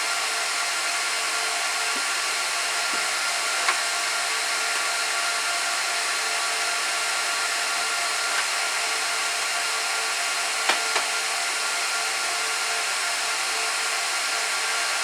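Rack server's cooling fans running steadily with a constant whooshing whine, and a couple of faint clicks about four and eleven seconds in.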